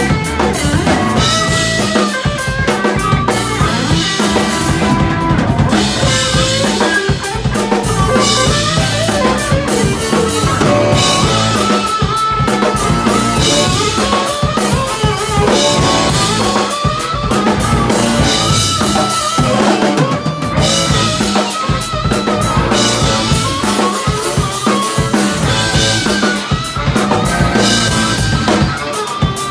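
Live band playing an instrumental passage, with the drum kit's kick, snare and rimshots prominent under melodic instrument lines.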